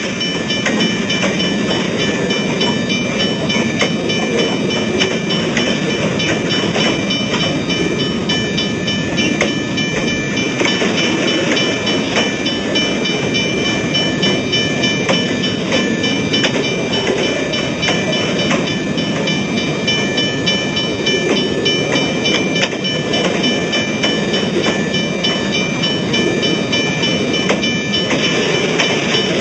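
Railway level-crossing warning bell ringing continuously, low-pitched, over a steady low rumble.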